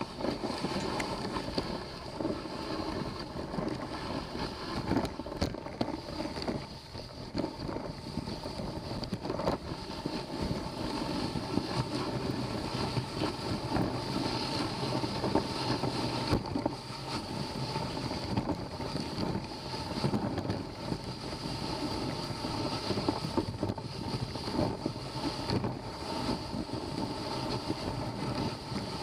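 Dog sled gliding over a snow trail: a steady hiss and scrape from the runners, with many small irregular crunches and wind on the microphone.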